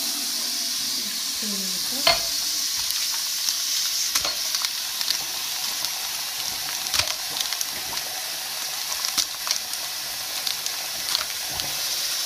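Hot water running steadily from a bathroom faucet into a sink, splashing over a plastic tray of frozen cubes held in the stream, with a few light clicks and taps from the tray being handled.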